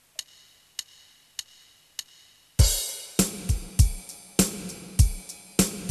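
Drum-kit music: four light, evenly spaced ticks, then about two and a half seconds in the full kit comes in with a cymbal crash, kick drum and snare playing a steady beat.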